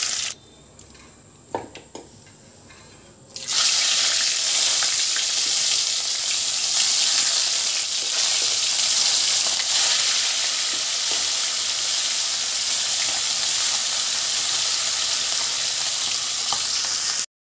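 Rohu fish steaks deep-frying in hot oil in a kadhai, a loud, steady sizzle. After a quieter start with a few faint clicks, the sizzle comes in suddenly about three and a half seconds in and cuts off just before the end.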